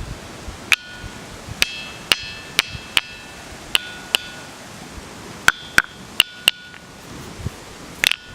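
A large gabbro boulder, Kūkai's bell stone, struck again and again with a small hand stone. Each knock rings with a short, clear metallic tone like a bell. There are about a dozen strikes, some single and some in quick pairs, with a pause in the middle.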